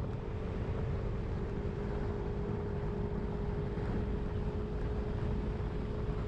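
Wind noise buffeting the microphone of a 2022 Yamaha Zuma 125 scooter riding at a steady cruise, over the steady drone of its single-cylinder four-stroke engine holding one even pitch.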